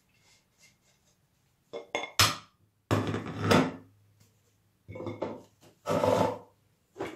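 Kitchenware being handled on a countertop: a plate and a glass set down beside a steel pot, with a few sharp knocks about two seconds in, then longer spells of scraping and clattering.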